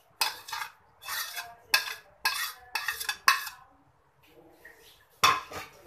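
Metal spoon scraping and clinking on ceramic dishes as mashed boiled potato is scraped off a plate into a bowl of yogurt. A quick run of short scrapes and clinks is followed by a pause of about a second and a half, then one more loud clatter near the end.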